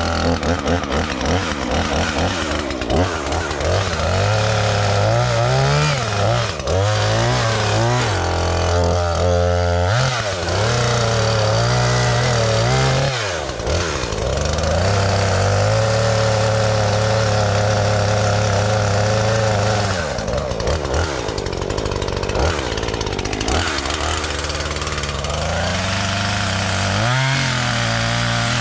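Gas chainsaw running, its engine revving up and down repeatedly, then held at a steady pitch for several seconds, as when cutting through brush stumps; the pitch drops and climbs again near the end.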